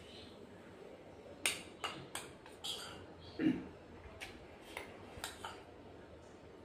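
Metal spoon tapping and scraping against a small ceramic bowl while eating: a string of short sharp clinks, with a brief low mouth sound about three and a half seconds in.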